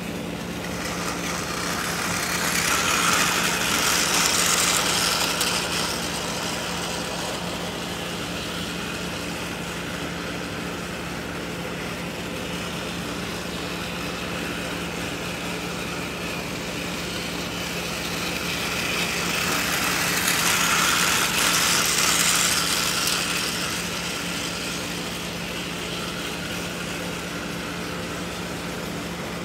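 Motorized Thomas & Friends toy engines running around a plastic track: a steady whir of small motors and wheels, swelling twice as an engine passes close, a few seconds in and again around twenty seconds in.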